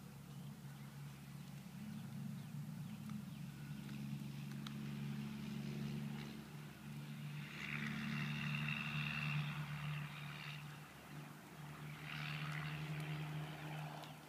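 Steady low engine drone from an unseen motor, with two stretches of hiss, one about halfway through and one near the end.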